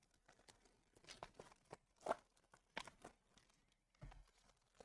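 Wrapper of a Panini Chronicles football card pack being torn open and crinkled by hand. It is faint crackling and rustling, with short tearing sounds about two and three seconds in.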